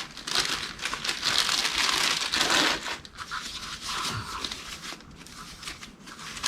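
Packaging crinkling and rustling as a new piston is unwrapped and handled by hand, louder for the first few seconds and then fainter.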